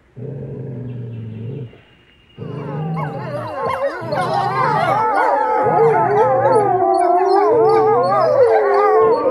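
Grey wolves: a low growl for about a second and a half, then several wolves howling together in a chorus of wavering, overlapping howls that grows louder, with growling underneath at times.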